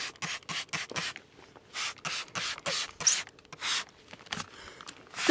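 Trigger spray bottle squirted in quick short bursts, about a dozen hissing sprays, misting soapy leak-detection solution onto a car tire.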